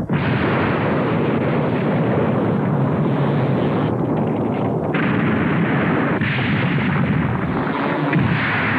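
Cartoon sound effect of heavy rock and earth rumbling, a continuous loud rumble of shifting rock and dust, like a landslide or earthquake. The hiss above the rumble drops out briefly about four seconds in and returns about a second later.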